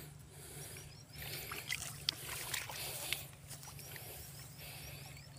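Faint splashes of a hooked fish thrashing at the water's surface near the bank, two short sharp splashes standing out about two and three seconds in, over a steady low hum and a rhythmic high chirping.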